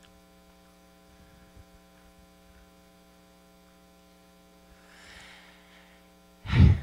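Faint, steady electrical mains hum from the sound system, with a soft rustle about five seconds in and a short, loud voice-like sound just before the end.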